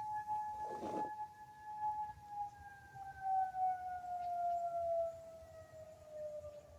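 Civil-defence warning siren sounding a long steady tone that, about two seconds in, begins to fall slowly in pitch as it winds down.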